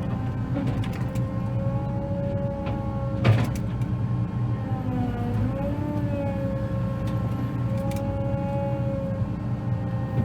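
Combine engine running steadily, with a whine over it that wavers in pitch for a couple of seconds around the middle while the machine works to hook up a header. There is one sharp clack about three seconds in.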